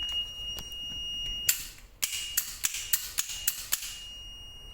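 Multimeter continuity beep, a steady high tone, sounding across an HVAC contactor's closed contacts: they have continuity. About a second and a half in the beep cuts off with a clatter of sharp clicks, and it sounds again near the end.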